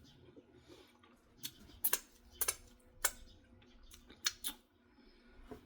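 Mouth-close chewing of Ritz crackers with sardines: about six short, crisp crunches and clicks, spread irregularly over a few seconds.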